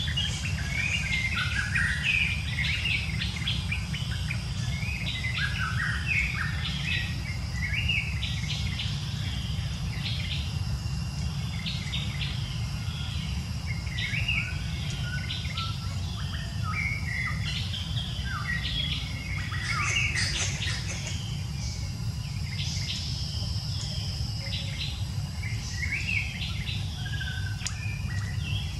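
Birds chirping: many short, varied calls, some rising and some falling, over a steady low rumble and a faint high steady tone.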